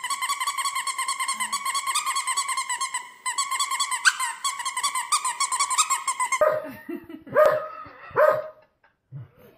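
Small fluffy white dog howling: one long, high, wavering howl held for about six seconds. After it ends, a second small dog gives a few short whines and yips.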